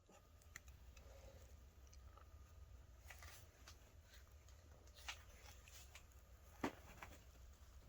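Near silence: a low steady hum with a few faint clicks and taps, the loudest about two-thirds of the way through.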